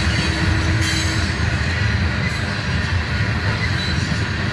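Freight train of coal cars rolling past: a steady rumble of steel wheels on rail.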